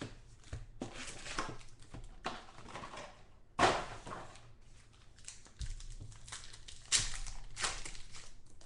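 Trading cards being handled and flipped through, with irregular rustling and sliding and a couple of louder scrapes.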